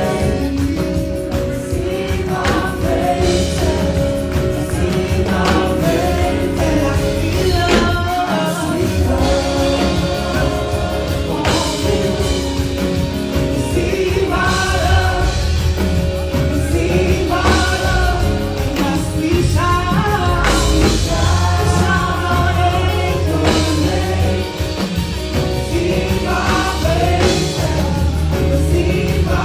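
Gospel choir singing a worship song in full voice over a live band with bass, drums and keys.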